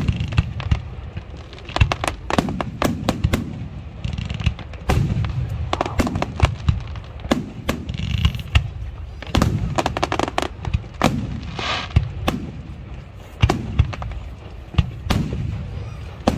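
Fireworks display: aerial shells bursting with many sharp bangs, often several in quick succession, over a continuous low rumble, with short bursts of crackling among them.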